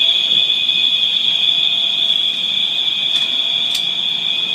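Building fire alarm sounding a steady, unbroken high-pitched tone, with two faint clicks about three seconds in.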